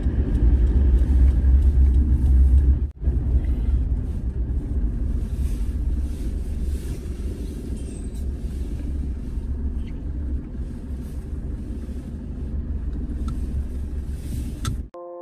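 Car driving slowly, heard from inside the cabin: a steady low engine and road rumble. It is louder for the first three seconds, drops out for an instant, then carries on quieter as the car slows and pulls up.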